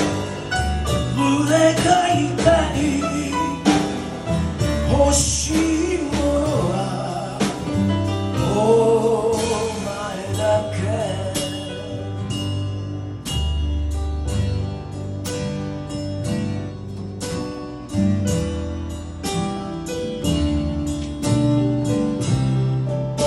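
A man singing a slow Japanese blues ballad to acoustic guitar, with upright bass and drums behind him. About halfway through the singing stops and the music goes on as an instrumental passage of quick plucked notes over the bass.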